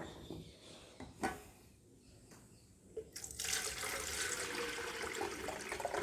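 A couple of light knocks, then water running steadily into a stainless steel electric kettle as it is filled, starting about three seconds in.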